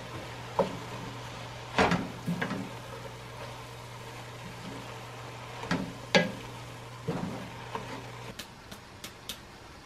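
Wooden spoon stirring chopped greens in a stainless steel pot, with scattered sharp knocks as the spoon hits the pot, two of them louder. A low steady hum runs underneath and cuts off near the end.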